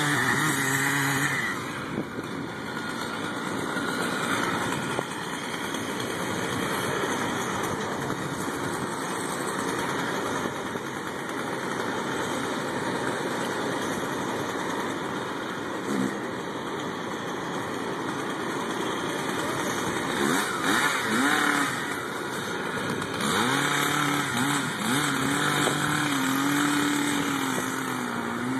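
Engines of tree-removal power equipment running steadily. Near the end a pitched engine note wavers up and down.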